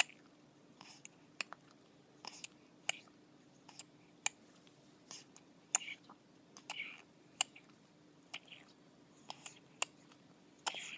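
Baby sucking and swallowing on a feeding bottle: irregular soft clicks and smacks, roughly one or two a second, with short wet sucking sounds between them.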